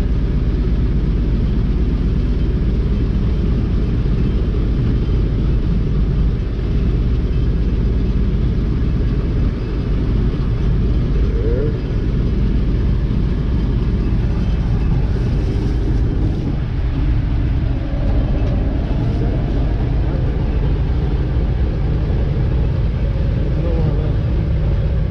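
Large diesel engine idling steadily, a Gleaner combine warming up after a cold start.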